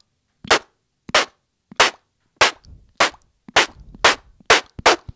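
Beatboxed BMG lip snare: sharp, crisp snare hits made by pressing the lower lip hard against the upper lip without blowing, about nine strokes that come faster toward the end.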